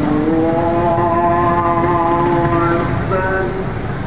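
A voice holding one long drawn-out note for nearly three seconds, then a shorter phrase about three seconds in, over a steady low roar of street noise.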